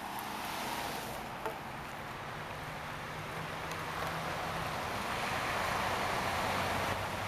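Road traffic going by: a steady rush of tyre and engine noise that swells gradually and peaks near the end, over a faint low engine hum.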